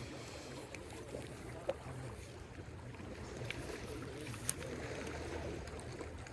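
Steady low rumble of lake water and wind at the shore, with two short sharp clicks about two and a half seconds apart.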